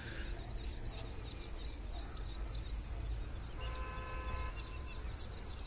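Rural outdoor ambience: a steady high-pitched drone of insects with many short bird chirps over it, above a low rumble. A brief steady pitched tone sounds about two-thirds of the way in.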